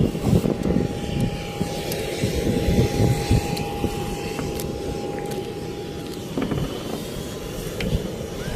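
Wind rumbling on the microphone, with a steady high whine from a distant aircraft that cuts off about six seconds in.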